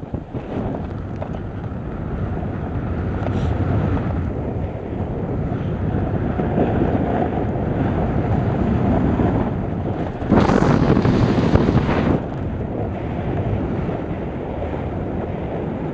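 Wind rushing over the microphone of a camera carried downhill on a ski slope. About ten seconds in, a louder hiss lasts around two seconds.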